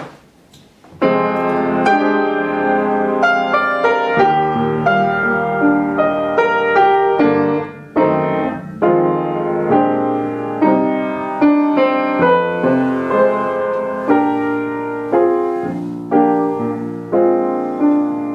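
Upright piano played solo, chords and melody of a gospel song's introduction, beginning about a second in.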